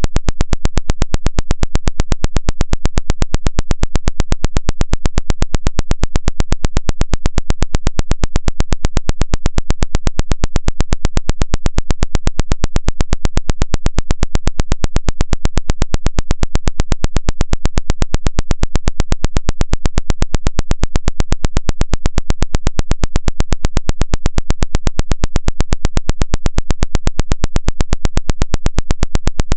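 Electronic water-ejection buzz, pulsing evenly several times a second with no change, played to shake water out of a phone's charging port.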